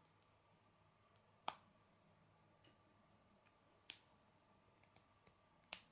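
Plastic K'nex rods and connectors clicking as they are snapped together by hand: a few sharp clicks, the loudest about a second and a half in and another just before the end, with fainter ticks between.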